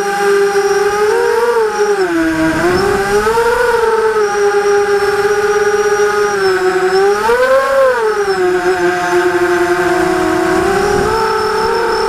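Vortex FPV racing quadcopter on a 4S battery, its motors and propellers whining as heard from the onboard camera. The pitch swells up and falls back with the throttle several times, most strongly about three and a half and seven and a half seconds in, and rises again near the end.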